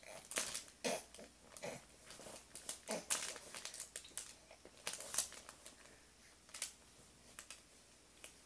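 Baby's soft grunts and breaths during tummy time, with short, scattered crinkling and rustling as its hands work the fabric play mat; the rustles thin out after about five seconds.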